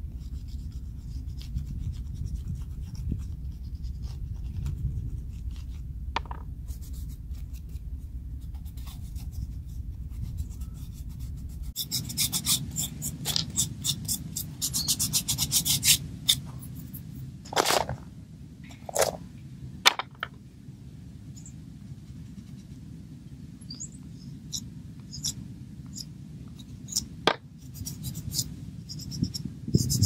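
Blue chalk pastel rubbed and scraped across a piece of bark in quick scratchy strokes, with a low rumble on the microphone through the first part. Later come a few sharp clicks and light taps as the pastel and bark are handled in a cardboard box.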